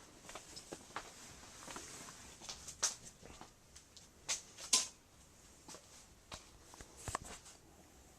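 Scattered light clicks, scuffs and knocks of someone moving about a bare room, with a pair of sharper knocks near the middle and another toward the end.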